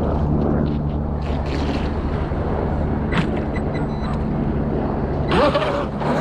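Steady low mechanical hum over outdoor background noise, with a single click about three seconds in and a short, louder burst with a rising tone about five and a half seconds in.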